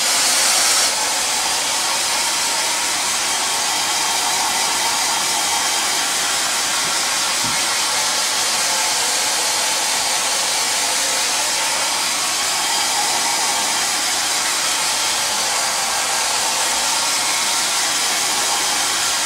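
Handheld hair dryer switched on and blowing steadily, drying freshly applied leather dye on a seat: an even rushing hiss of fan and airflow.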